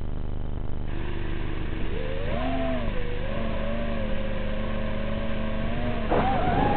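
Small drone's motors and propellers spinning up: a whine that rises in pitch about two seconds in as it lifts off, holds fairly steady, then climbs and warbles again near the end as the throttle changes.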